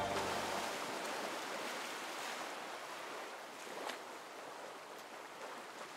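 Faint, steady hiss of ocean surf that eases off slowly, with a few faint clicks.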